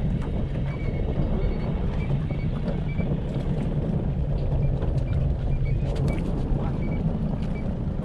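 Small fishing boat's engine running steadily, a constant low hum with wind and water noise over it.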